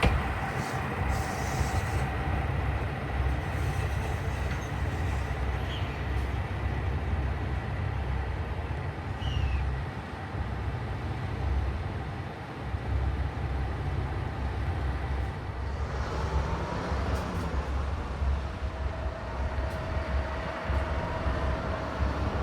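Diesel train running: a steady low rumble, with thin, faint squealing tones at times.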